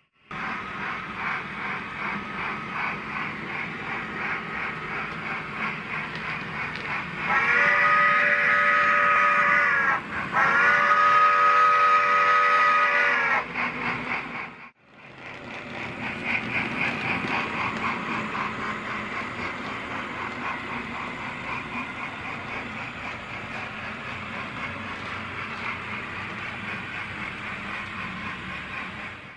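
Model diesel locomotive on an HO-scale layout running with a steady mechanical sound. Its horn sounds two long multi-note blasts, starting about seven and ten seconds in. The sound cuts out briefly about fifteen seconds in, then the running sound resumes.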